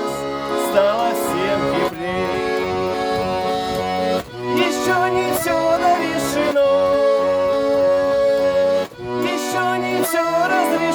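A Russian garmon (button accordion) playing the song's melody in chords over an alternating bass-and-chord accompaniment on the left-hand buttons, with two brief breaks in the sound.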